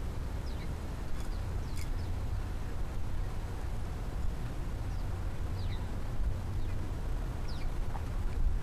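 Backyard outdoor ambience: a steady low rumble with a few faint, short, high chirps of small birds scattered through it.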